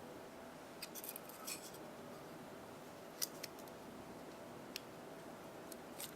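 Faint, scattered metallic clicks and light scrapes of small folding-knife parts being handled during disassembly, over a low steady room hum.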